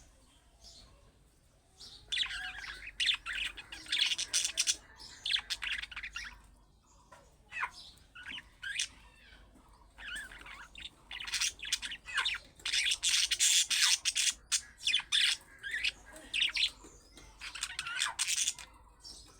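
Budgerigar warbling and chattering: rapid chirps and squawks come in busy spells a few seconds long, with quieter gaps between them.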